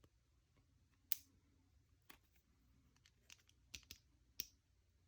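Small sharp metallic clicks and taps, about six scattered through the quiet, the first about a second in the loudest. These are tools and small parts of a Schlage round-body padlock being handled while it is taken apart at the circlip.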